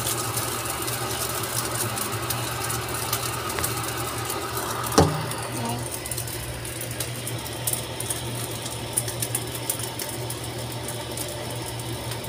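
Fried rice frying in a nonstick pan while a spatula stirs and scrapes it, over a steady low hum, with one sharp clack about five seconds in and small scraping ticks after it.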